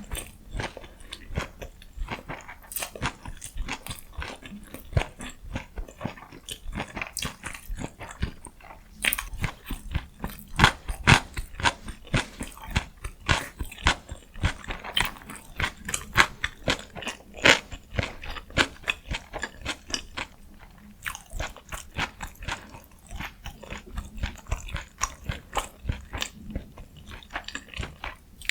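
Close-miked eating: chewing and biting food, a dense, irregular run of sharp mouth clicks and crunches, loudest around the middle.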